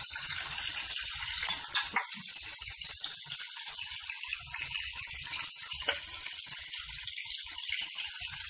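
Breaded chicken cutlets shallow-frying in hot oil in a pan, a steady hissing sizzle. Two sharp clicks come close together a little under two seconds in.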